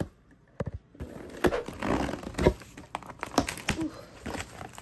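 Cardboard shipping box being opened by hand: a run of irregular scrapes, taps and knocks as the tape is split and the flaps are pulled back. It starts about a second in, after a brief near-silence.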